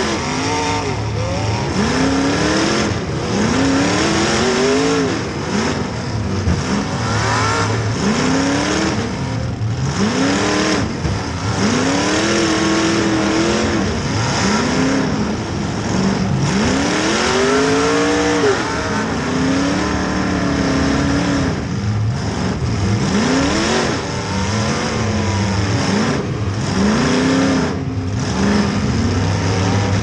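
Demolition derby car's engine heard from inside the gutted cabin, revving up and falling back over and over, roughly every one to two seconds.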